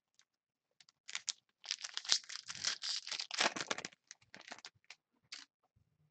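A card pack's wrapper being torn open and crinkled: a dense run of crackling for about two seconds, then a few scattered crinkles.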